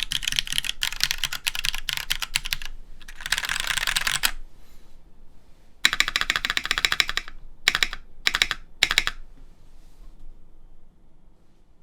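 Typing on a Duck Jetfire mechanical keyboard with Cherry MX Black switches on an aluminium full plate and GMK keycaps: fast clacking keystrokes, then a few dense flurries of keys, stopping about nine seconds in.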